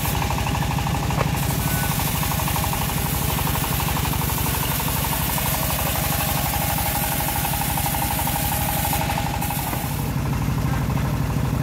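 Engine of a homemade sawmill bandsaw running steadily, a rapid, even low thudding.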